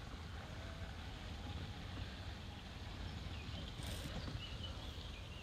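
Outdoor ambience: a steady low rumble of wind on the microphone, with a few faint bird chirps in the second half.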